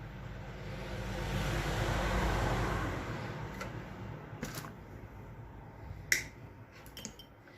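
Hands working on a vacuum cleaner's parts: a rustling scrape that swells and fades over the first three seconds, then a few sharp clicks, the loudest about six seconds in.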